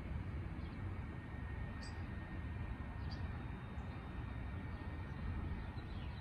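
Steady low rumble of outdoor street ambience, with a few brief high chirps about two and three seconds in.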